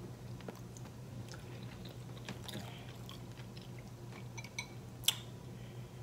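Close-up chewing of soft turkey leg meat: faint wet mouth sounds and small clicks. A single sharp clink about five seconds in comes from a metal fork dipping into a glass bowl of sauce.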